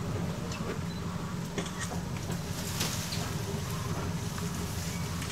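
Boat motor idling steadily with a low, even hum, with a few faint short clicks over it.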